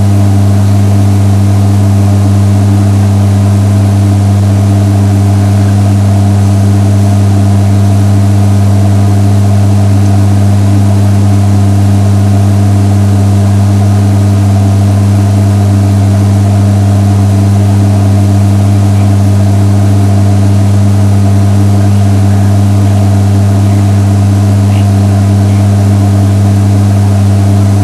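Loud, steady low-pitched hum that does not change at all.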